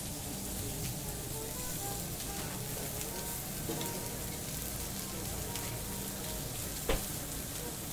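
Lamb sizzling steadily on a hot barbecue grill, with one sharp click near the end.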